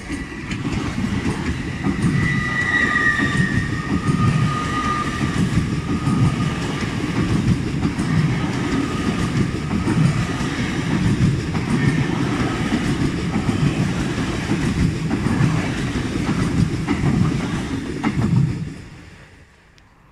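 LNER Azuma high-speed train passing close by: a heavy, steady rumble of wheels on rail with a clickety-clack rhythm, and a high whine-like tone in the first few seconds. The sound fades away near the end.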